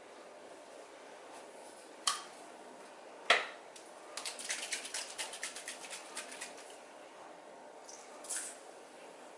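Small household handling sounds: a sharp click, then a louder knock, then a quick irregular run of about fifteen small clicks lasting a couple of seconds, and a short rustle near the end.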